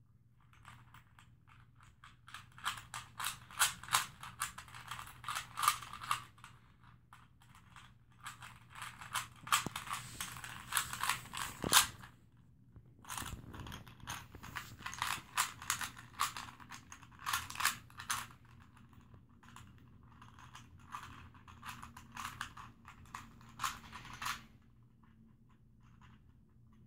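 Plastic 3x3 Rubik's cube being turned by hand mid-solve: quick runs of clicking and clacking as the layers twist, coming in bursts with brief pauses about seven and twelve seconds in, and stopping a couple of seconds before the end.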